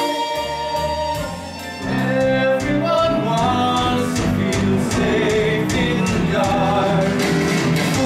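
A live rock musical number: singers hold notes over the band, then about two seconds in the full band comes in louder with a steady beat under the sung melody.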